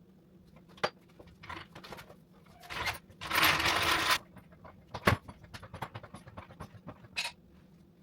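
Metal tools being handled: scattered clinks and clicks, with a louder rattle lasting about a second, about three seconds in, and a shorter one near the end.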